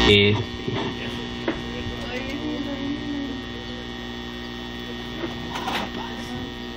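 Steady electrical mains hum from a microphone and sound system, with a brief faint voice about halfway through.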